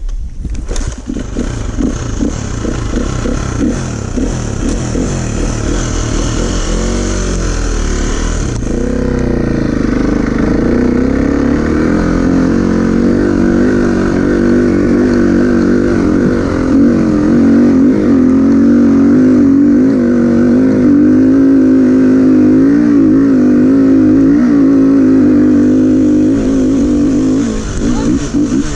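An off-road vehicle's engine revving and working under load, its pitch repeatedly rising and falling. It gets louder about eight seconds in and stays loud until it eases off near the end.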